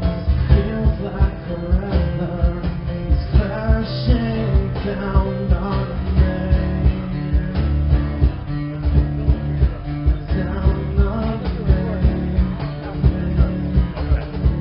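A rock band's live acoustic set: a singer's voice over guitars, with a steady beat.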